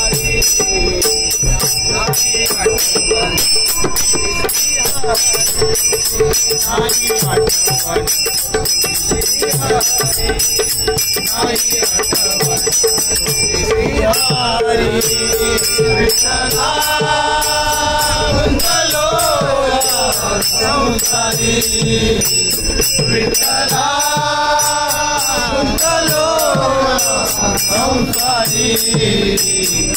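Group of men singing a Marathi devotional bhajan (a Vitthal abhang) to the steady clash of small brass hand cymbals (taal) and drum beats. The singing voices come to the fore about halfway through.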